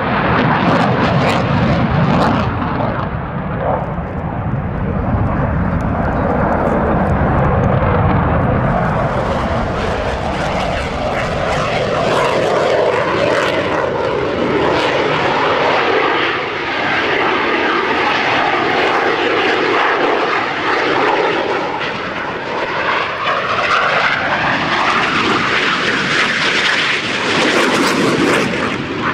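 Jet noise from an F/A-18 Hornet's twin turbofan engines during a display pass. A loud, deep rumble gives way, about a third of the way in, to a rushing hiss with tones that sweep down and up as the jet moves across overhead.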